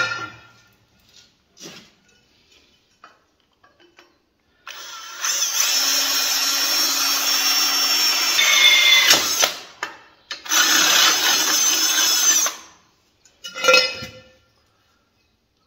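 Cordless drill boring a drain hole through the steel tube of a parasol stand, in two steady runs of a few seconds each with a short pause between. A brief clatter follows near the end.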